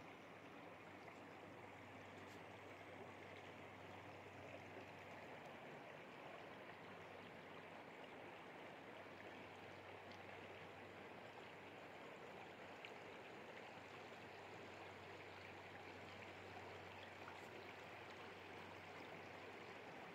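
Faint, steady rush of a shallow river running over rocks and riffles, with a low steady hum underneath.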